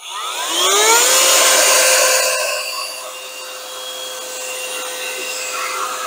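XREXS cordless handheld vacuum cleaner switching on, its motor whine rising for about a second and then running steady. The sound drops somewhat about two and a half seconds in and holds there.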